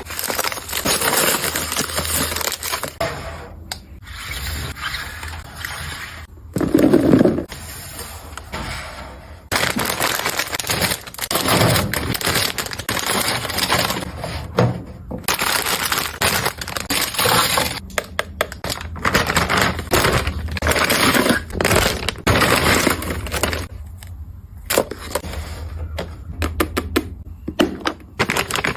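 Objects being handled and set down, with irregular clicks, knocks and scrapes.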